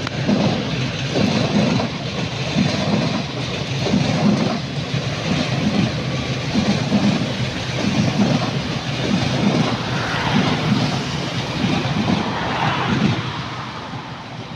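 Two coupled Z20500 double-deck electric multiple units passing close beneath at speed: a steady rushing rumble with the wheels beating out a regular rhythm of about one and a half beats a second as each bogie goes by. The sound fades near the end as the train runs away.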